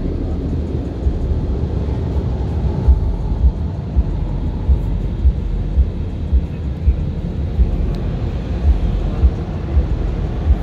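Automatic car wash machinery heard from inside the car: a steady low rumble, with regular thumps about twice a second from about three seconds in.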